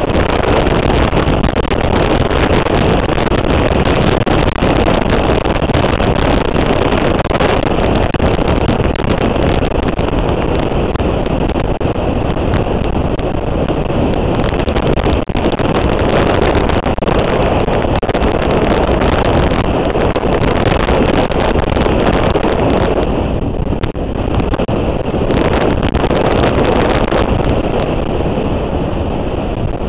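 Motorcycle riding at speed, its engine running under heavy wind buffeting on the microphone; the noise eases a little about twenty-three seconds in.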